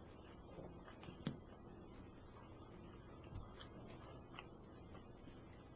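Near silence with quiet chewing of pot stickers, broken by a few faint soft clicks, the sharpest about a second in.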